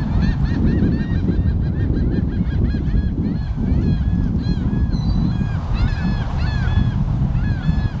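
A flock of gulls calling at once: many short, arched squawks overlapping without pause, over a steady low rumble.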